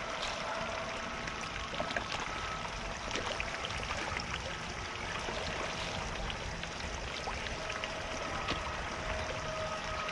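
Water trickling steadily in a garden koi pond, with a faint steady hum and small scattered ticks.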